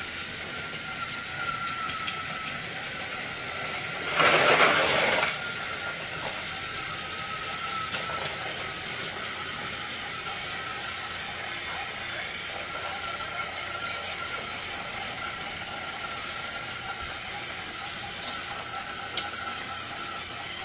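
Small electric motor of a battery-powered toy train running steadily with a faint high whine. About four seconds in comes a loud burst of hiss lasting about a second.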